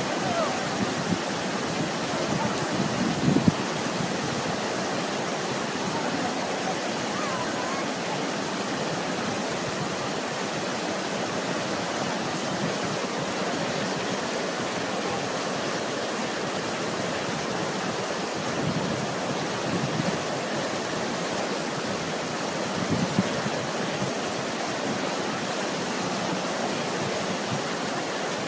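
Steady rushing of a flooded, muddy river running fast, with a couple of brief louder bumps about three seconds in and again later.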